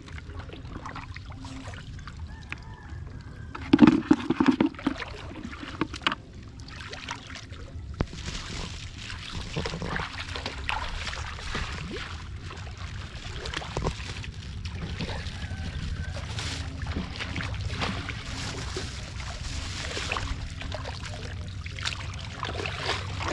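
Shallow muddy water sloshing and splashing as a person wades and works through it with hands and a woven basket, in uneven bursts over a steady low rumble. A louder burst comes about four seconds in, and the splashing grows busier from about the middle on.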